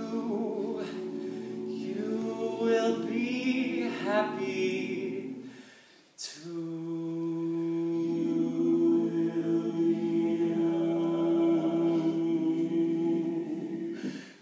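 Male a cappella group singing held chords without words, a solo voice wavering above them. The voices die away about six seconds in, then the group comes back in on a long steady chord.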